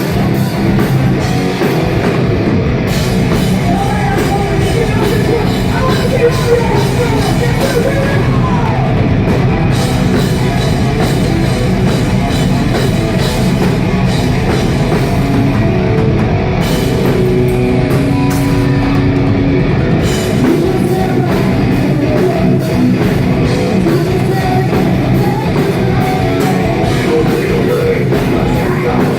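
A metal band playing live and loud, with drums, electric guitar and singing. It is recorded on a phone that cannot handle the volume, so the sound is harsh and distorted.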